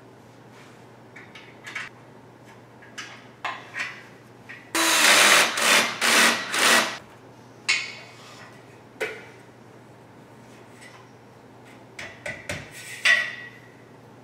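Metal bed-frame parts handled by hand: scattered clinks and knocks, a loud rattling scrape of about two seconds in the middle, and a quick cluster of clinks near the end.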